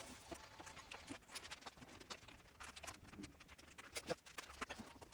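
Faint, irregular light clicks and taps of small parts and tools being handled, at close to room-tone level.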